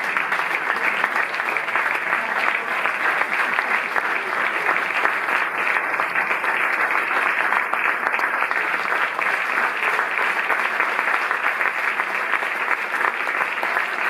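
Audience applauding: many people clapping at once in a steady, unbroken wash of claps.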